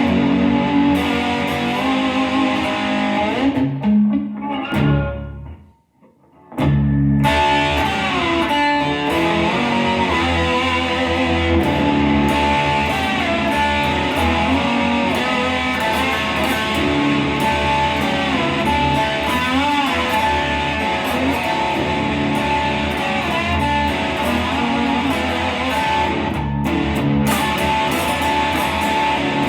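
Custom-built mini lap steel guitar played with a slide on its first sound check: sustained notes with gliding, wavering pitch. The playing breaks off briefly about five seconds in, then resumes.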